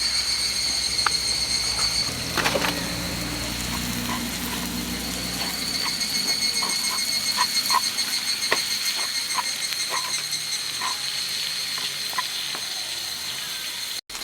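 Wood campfire crackling, with scattered small pops, over a steady high-pitched drone in the background. A low rumble fades out about six seconds in.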